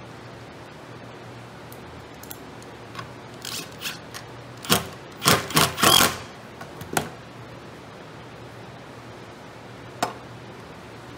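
Cordless driver fastening the hardware of a metal J-hook rail assembly in several short bursts, the loudest cluster a bit under halfway through and one more near the end. Light clicks and clatter of the metal and plastic parts being handled.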